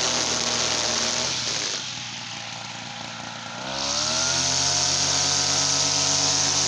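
TL33 brush cutter's small two-stroke engine running at high throttle, easing back to a low idle just under two seconds in, then revving back up with a rising whine a couple of seconds later and holding high.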